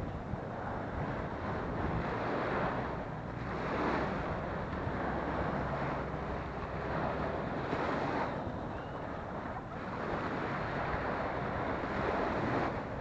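Small waves breaking on a sandy shore, the wash swelling and falling back every few seconds, with wind buffeting the action camera's microphone.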